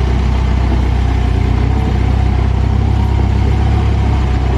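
Engine idling steadily, a low even drone.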